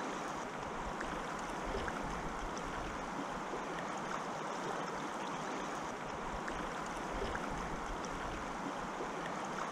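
Shallow river current flowing steadily close to the microphone.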